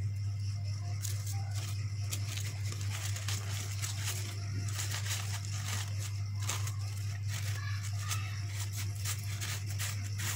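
Crepe paper rustling and crinkling in the hands as it is handled and wrapped, in scattered short bursts over a steady low electrical hum.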